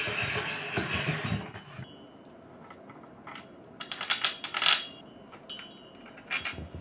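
A hand screwdriver and loose metal screws clicking and clinking against a metal table frame while the table's screws are worked on: scattered sharp metallic chinks, busiest about four seconds in. The first couple of seconds hold rustling with a few low knocks.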